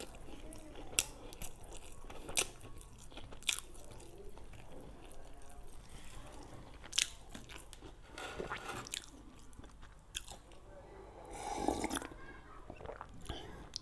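Close-miked eating of homemade donuts: chewing and biting with sharp mouth clicks every second or two. There are softer noisy smacks near the middle and toward the end.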